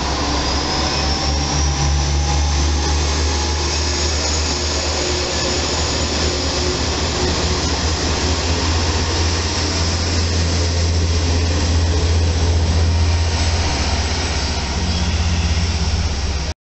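Diesel engine of a KiHa 40-series railcar running under power as the car moves past along the platform: a deep steady throb with a high whine that rises over the first few seconds.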